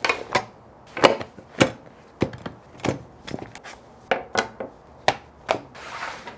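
A leather knife roll and its chef's knives handled on a wooden butcher-block table: a quick, uneven series of sharp knocks and taps on the wood, with a short brushing slide near the end.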